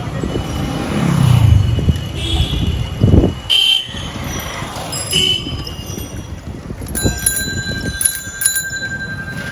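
Busy road traffic: motor engines rumbling, with several short high toots and, near the end, one steady high tone held for about two and a half seconds.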